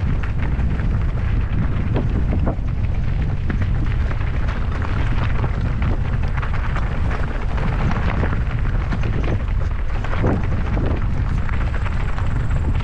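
Mountain bike riding over rough trail: wind buffets the microphone with a constant low rumble, and the bike and tyres clatter and knock on stones and roots over and over.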